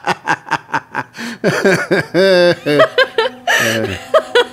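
People laughing in quick, repeated bursts, trailing off into softer chuckles. Soft background music comes in near the end.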